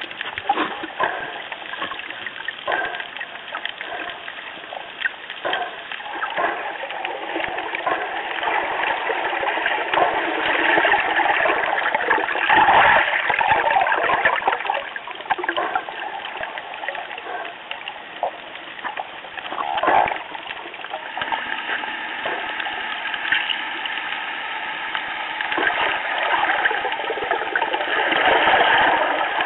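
Underwater water noise picked up by a waterproof action camera's microphone: steady rushing and sloshing with scattered clicks, swelling louder around the middle and again near the end.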